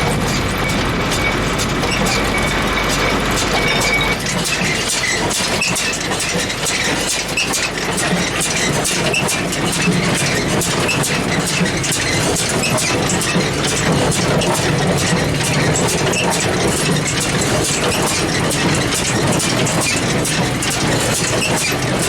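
John Deere hay baler running, driven by its tractor: a steady engine drone under a dense, rapid mechanical clatter. About four seconds in a low hum and a steady high tone drop out and the running sound changes.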